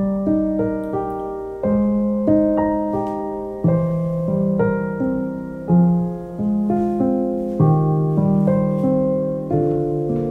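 Background solo piano music: a slow, gentle piece of single notes and chords, its bass note changing every one to two seconds.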